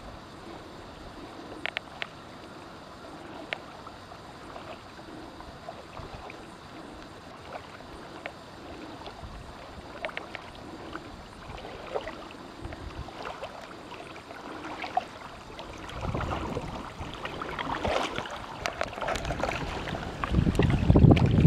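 Water lapping and paddle drips and splashes around kayaks on a lake, with scattered small ticks and knocks. In the last few seconds the sound grows louder and close splashing mixes with low rumbling wind on the microphone.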